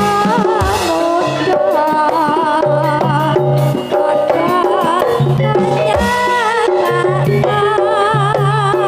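Campursari music: a Javanese ensemble with drumming, a steady repeating low bass figure and a melody line with a wide, wavering vibrato.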